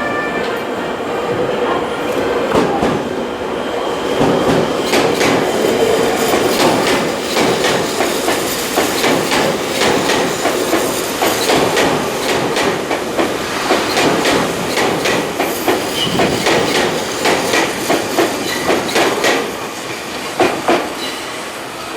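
Tobu 8000-series electric train rolling slowly through pointwork, its wheels clacking unevenly over rail joints and crossings, the clacks growing denser a few seconds in.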